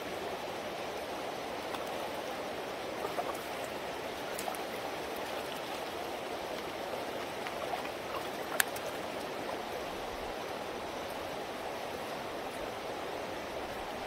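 River water rushing steadily past, an even wash of flow noise. A few light ticks sound over it, and one sharp click comes a little past halfway.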